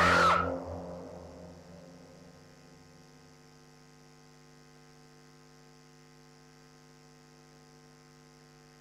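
Music fades out over about two seconds, leaving a faint, steady electrical mains hum.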